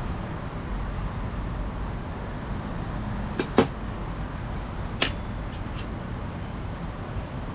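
Two sharp knocks about a second and a half apart over a steady background noise, with a few faint clicks after the second knock.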